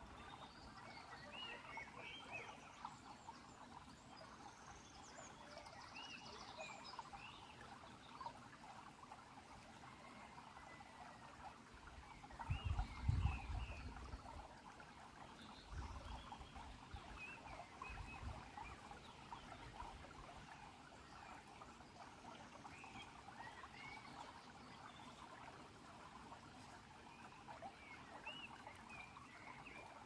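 Shallow stream trickling and babbling over pebbles, with small chirping calls scattered above the water throughout. A brief low rumble comes about halfway through.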